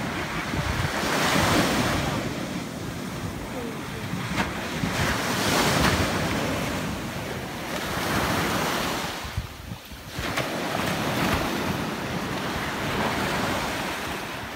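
Small sea waves breaking and washing up a sandy beach, the surf swelling and fading every few seconds, with wind buffeting the microphone.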